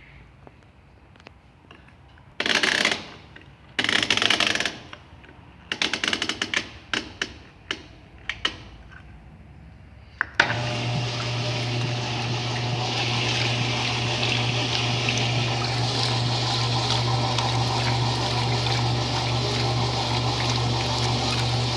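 Electrolux LE08 washing machine: a few short knocks and a run of clicks, then a sharp click about ten seconds in as water starts rushing into the machine with a steady hum, the fill at the start of a cycle.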